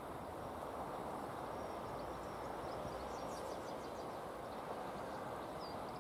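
S&DJR 7F 2-8-0 steam locomotive No. 53808 creeping slowly forward at a distance, heard as a steady low rumble and hiss without distinct chuffs. Small birds chirp a few times in the middle and again near the end.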